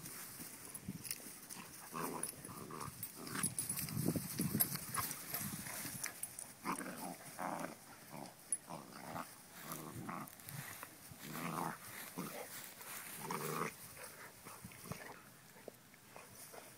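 Basset hound puppy growling in many short, irregular bursts while play-fighting, trailing off near the end.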